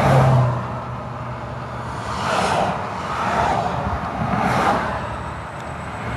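Volkswagen GTI Mk V's turbocharged four-cylinder engine running while the car drives slowly, with a low steady hum and a few rushing swells of noise over it.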